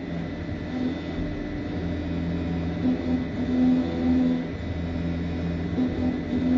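EMCO Maxxturn 65 CNC turning centre cutting an aluminium sprocket: a steady machine hum with low tones that come and go as the cut proceeds.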